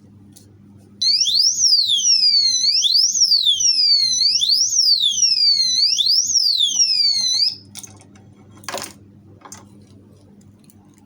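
Motorcycle disc-lock alarm siren wailing, its pitch sweeping quickly up and then gliding back down about once every one and a half seconds, four times over, then cutting off suddenly. About a second later comes a short rattle.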